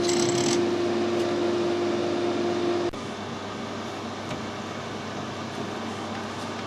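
Metric metal lathe running with a steady hum and a brief hiss at the start; the hum cuts off abruptly about three seconds in, leaving a quieter steady background noise.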